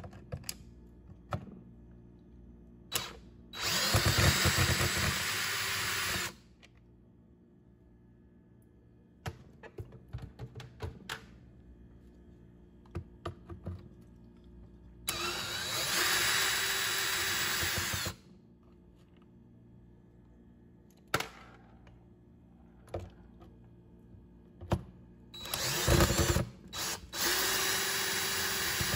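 A power driver backs screws out of a Husqvarna 125BV leaf blower's housing: three runs of the motor whirring for about three seconds each, the first and last with a louder rattle as they start. Light clicks of the screws and bit being handled fall between the runs.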